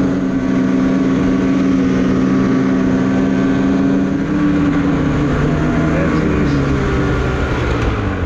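Snowmobile engine running at steady high revs while under way. About halfway through the revs start to fall and keep dropping as the sled slows.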